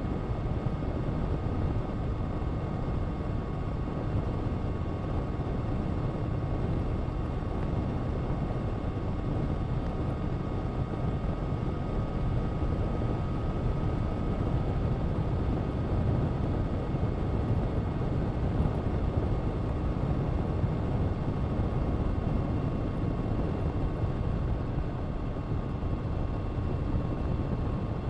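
Honda CBR1000RR-R SP Fireblade's inline-four engine with an Akrapovic exhaust, held at a steady speed while riding, a constant drone under heavy low wind rush with no revving up or down.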